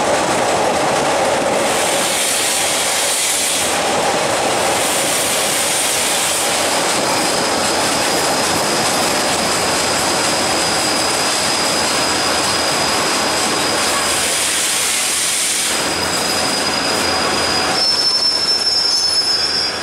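Passenger train rolling slowly along a station platform, heard from an open carriage door: a steady rumble of wheels on rail, with a thin, high, steady squeal from the running gear from a few seconds in until near the end as the train slows.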